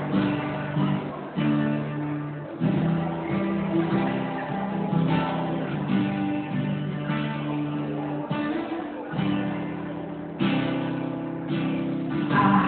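Guitar strumming held chords as a song's intro, with a new chord every one to two seconds.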